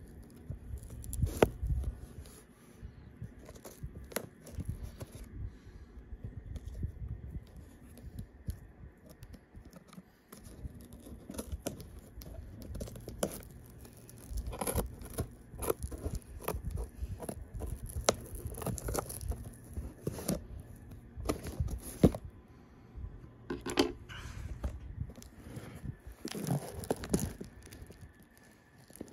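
Packaging being torn open and crinkled by hand, with irregular rustling and scattered sharp clicks and knocks as it is handled.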